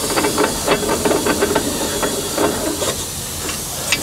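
Irregular metallic clanking and rattling from a steel container chassis being worked on, over a steady hiss; the clanking thins out about three seconds in.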